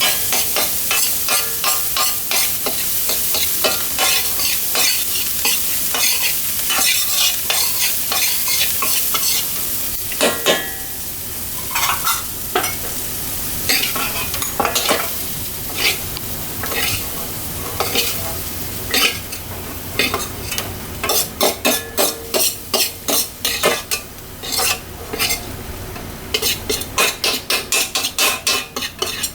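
Fried rice with sea crab sizzling as it is stir-fried in a wok, with a metal spatula knocking and scraping against the pan. The sizzle is strongest in the first third, and the spatula strikes come as a quick, even run in the last third.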